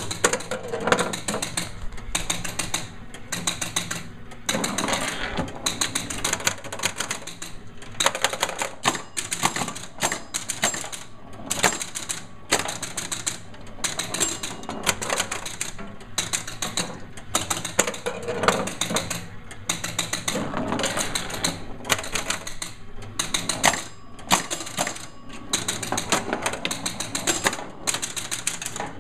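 Bally Zip-A-Doo electromechanical pinball machine running a game: a dense, irregular clatter of relays and switches clicking several times a second.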